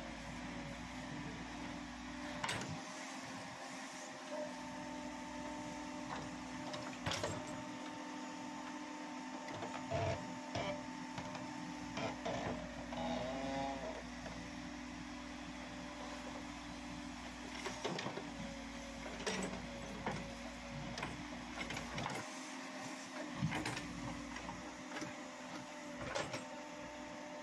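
Escorts backhoe loader working: a steady engine and hydraulic hum, with scattered knocks and clanks as the rear bucket digs into the soil.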